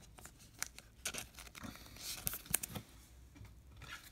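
Baseball trading cards handled by hand: quiet rustling and scattered light clicks and taps of card stock, with a slightly longer rustle about two seconds in.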